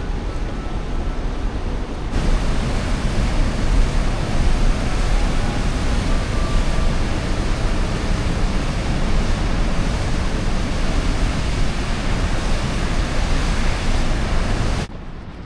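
Steady, dense rushing of water, rain or fast-flowing water, with no distinct strokes or tones. It grows louder about two seconds in and cuts off suddenly near the end.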